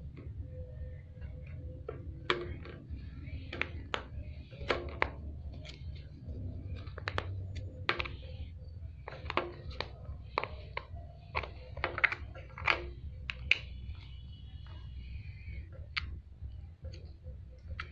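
Slime being squeezed and poked by hand, giving irregular sticky clicks and pops over a low steady hum.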